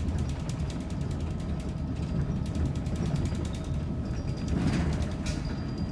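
Steady mechanical rattling, with rapid, evenly spaced clicks over a low rumble and a brief hiss about three-quarters of the way through.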